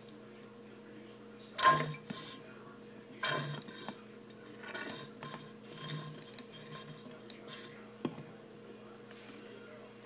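Dish soap being squeezed from a plastic squeeze bottle into a plastic spray bottle: a sharp knock of plastic on plastic, a second one a moment later, then softer clicks and squirts. A steady low hum runs underneath.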